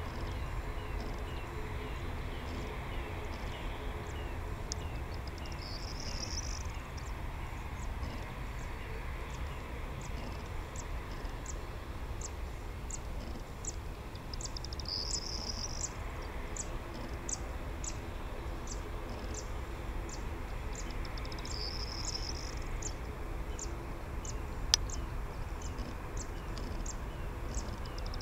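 Low steady rumble of a taxiing Boeing 737-800's CFM56 jet engines at idle. Over it, high-pitched chirping ticks about twice a second, short trills every several seconds, and a single sharp click late on.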